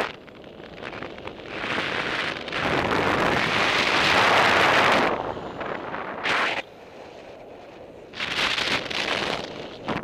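Airflow rushing over the microphone of a camera on a paraglider in flight. It swells and drops in waves: strong for a few seconds, falling away about two-thirds of the way through, then rising again near the end.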